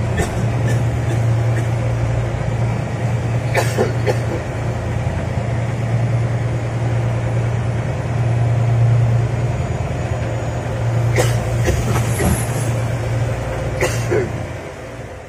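Fishing boat's engine running steadily with a deep hum, over a constant rushing noise, with a few short sharp knocks scattered through.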